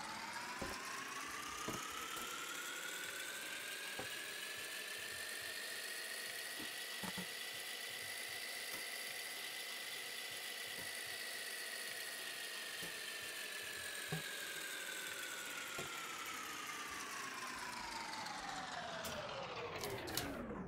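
Electronic synth sweep sound effect: a rich pitched tone rising slowly to a high peak and gliding back down, with faint scattered clicks throughout; it cuts off suddenly at the end.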